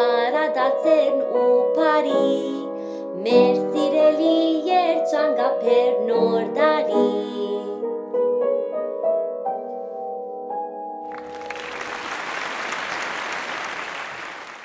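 A woman singing with Eterna upright piano accompaniment. The voice stops about seven seconds in and the piano plays on alone, closing the song, then applause fills the last three seconds.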